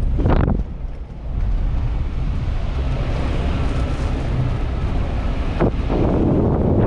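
Suzuki Grand Vitara driving off-road, its engine and rumble over the ground mixed with wind buffeting the microphone. Brief louder surges come about half a second in and again near the end.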